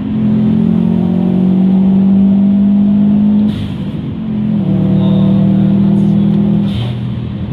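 Turbocharged Subaru WRX STI flat-four at full throttle, heard from inside the cabin. The engine pulls up through the revs through one gear, drops on an upshift about three and a half seconds in with a short burst of hiss, then pulls again and shifts once more near the end. Turbo and intake noise can be heard through the pull.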